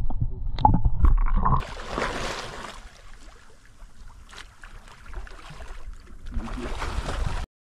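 Muffled underwater sloshing and knocks at first, then water splashing as a person swims through a lake, loudest early on after the change and again near the end, before cutting off suddenly.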